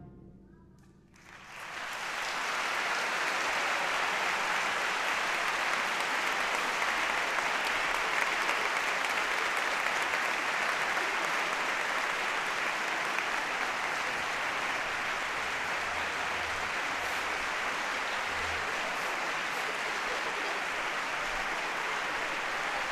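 Concert hall audience and performers applauding: the last band chord's reverberation dies away, then clapping breaks out about a second and a half in and holds steady.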